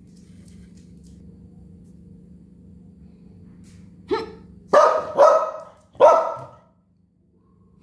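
Dandie Dinmont terrier barking: one short bark about four seconds in, then three louder barks in quick succession.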